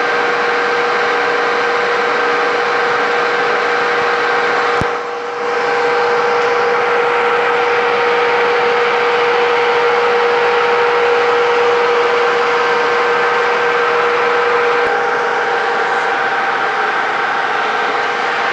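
Metal lathe running with a steady whine from its drive while a drill in the tailstock chuck bores into the spinning workpiece, with a single click and a brief dip in level about five seconds in.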